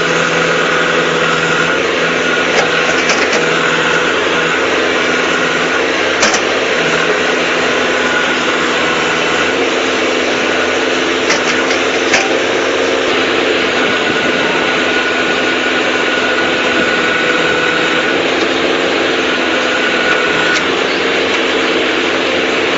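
A vehicle engine running steadily, with a few short sharp clicks.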